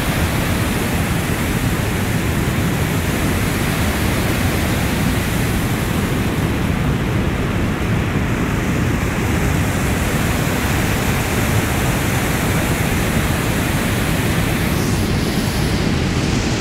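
Loud, steady rush of high floodwater pouring through a dam spillway and churning below it, the river swollen after heavy rain.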